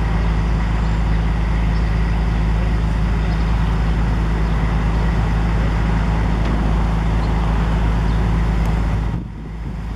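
A large engine running steadily with a deep low rumble. Its level drops about nine seconds in.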